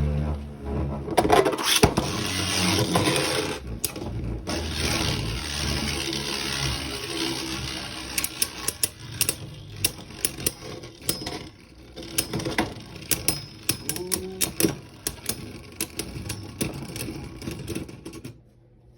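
Beyblade Burst spinning tops whirring and grinding around a plastic stadium. Later come many sharp clicks as the tops strike each other and the stadium wall, and the sound fades as they slow down.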